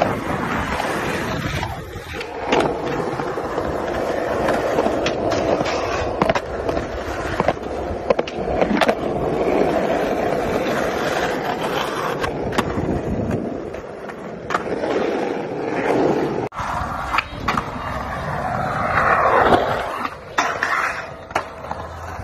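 Skateboard wheels rolling over street pavement, broken by sharp cracks of the board popping and slapping down on landings, in several short runs.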